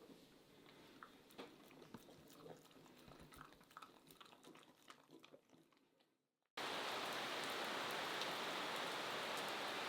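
Faint scattered clicks and ticks, then, starting abruptly about six and a half seconds in, the steady even hiss of heavy rain.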